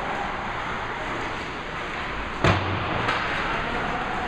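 Something hits the rink boards hard during ice-hockey play: one sharp bang about halfway through with a short low ring after it, then a lighter click. Steady arena noise runs underneath.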